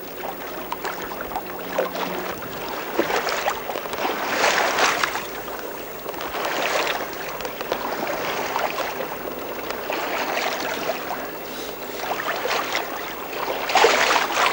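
Water rushing and splashing along the hull of a small gaff-rigged sailing boat under way, swelling in surges every few seconds as waves pass.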